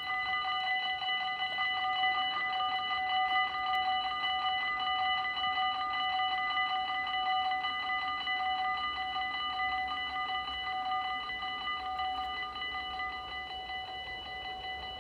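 Dutch railway level crossing warning bells ringing in rapid, even pulses of a ringing electronic tone, the signal that a train is approaching while the barrier arms come down.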